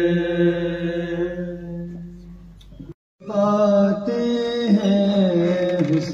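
A man's voice in devotional chanting recitation, holding one long note that fades away; after a brief dropout to silence just before the midpoint, the chant resumes with a rising and falling melodic line.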